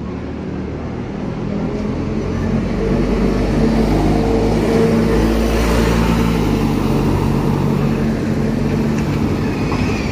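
Diesel single-decker bus driving past at close range. Its engine gets louder through the first half, is loudest about midway, and stays loud to the end.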